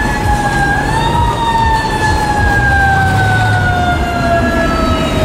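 Fire engine siren sounding. Its pitch rises briefly about a second in, then winds slowly downward, with the truck's engine running low underneath.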